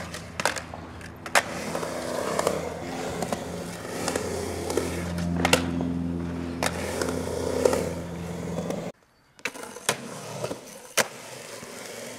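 Skateboard rolling on a concrete ramp over a steady low hum, with sharp clacks of the board and trucks striking the ramp. About nine seconds in the sound cuts off abruptly. Quieter rolling and a few board pops and landings on flat concrete follow.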